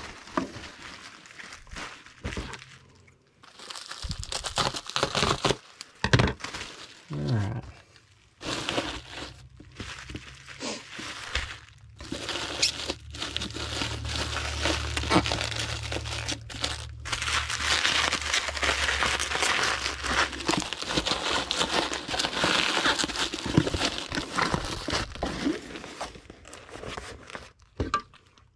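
Packing materials crinkling and rustling with tearing sounds as a package is wrapped and sealed, in a run of irregular crackles and clicks. A low steady hum comes in for a while in the middle.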